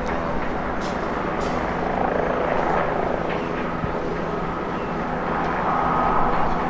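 Jet engines of a taxiing Airbus A320-family twinjet at taxi idle: a steady distant rumble and hiss, with a faint high whine coming in over the last few seconds.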